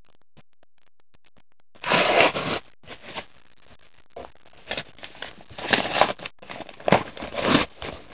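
A padded paper mailing bag being handled and torn open: crinkling and rustling paper in irregular bursts, the loudest about two seconds in and a run of them in the second half.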